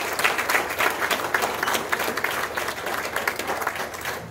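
Audience applauding: many hands clapping densely, tapering off near the end.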